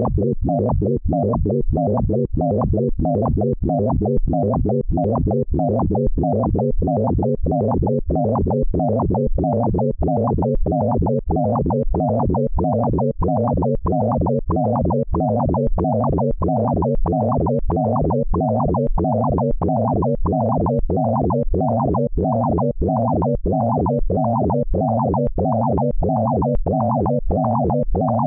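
Synthesized tones from a Pure Data sonification of a photograph's pixel colours: a low, layered electronic tone pulsing evenly about twice a second, its pitches shifting slowly as the red, green and blue values of the pixels being read change.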